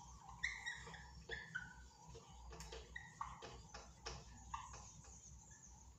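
Whiteboard marker squeaking and tapping as letters are written: a string of faint, short squeaks, several falling in pitch, with light taps between strokes.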